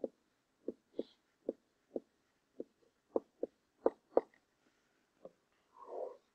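Faint stylus taps and clicks on a pen tablet while digits are handwritten: about a dozen short, irregularly spaced taps, then a soft brief rustle near the end.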